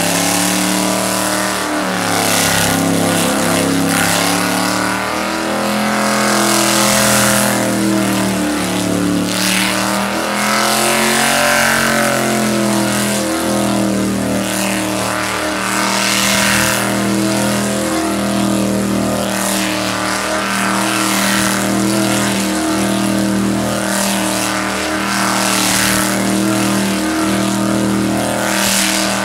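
Supercharged V8 of a Holden VL Commodore held at high revs during continuous donuts, its note steady with small dips about once a second. Spinning tyres add a hiss that swells and fades every second or two as the car circles.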